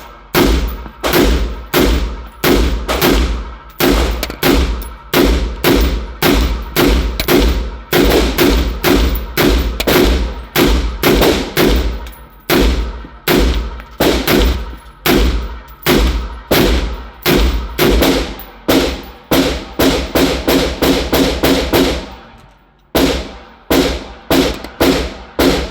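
Rapid gunfire, shot after shot at about two a second, each shot ringing briefly; the shooting pauses about 22 seconds in, then four more shots follow near the end.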